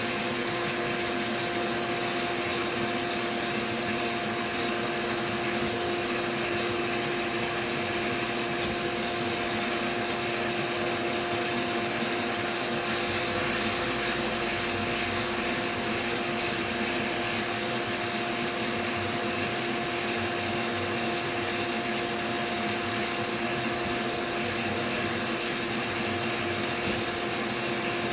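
CNC milling machine cutting a contour pass under coolant from a nozzle ring: a steady hiss with a steady tone running through it.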